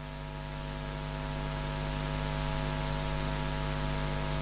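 Steady electrical mains hum with hiss from the sound system, slowly growing louder over the first couple of seconds and then holding steady.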